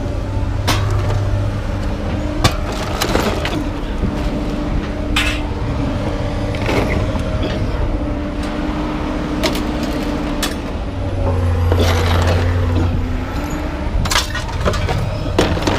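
Scrap metal being unloaded and dropped, with irregular sharp clanks and crashes, over the steady hum of an engine running.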